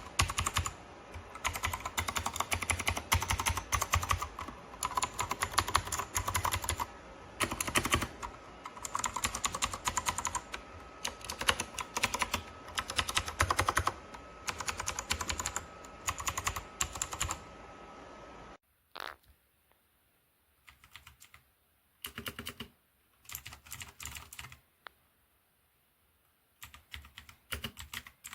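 Typing on a Dierya T68SE 60% mechanical keyboard with clicky blue switches, in fast, continuous runs of keystrokes. About two-thirds of the way through the background hiss cuts out, and the typing comes in short, separate bursts.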